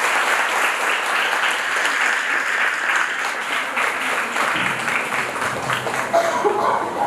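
Audience applauding: many hands clapping in a dense, even patter that thins out near the end.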